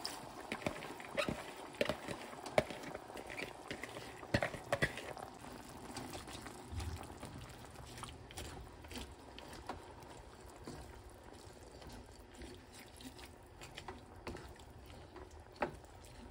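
Chicken broth simmering and bubbling in a deep frying pan while a wooden spoon stirs shredded carrots through it, with scattered light clicks and pops, most of them in the first few seconds.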